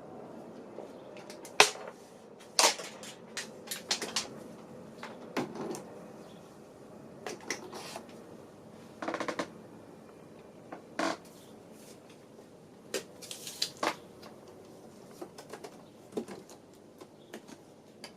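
Irregular clicks and light knocks, a second or more apart, with short clusters of quicker taps now and then; the sharpest come near the start.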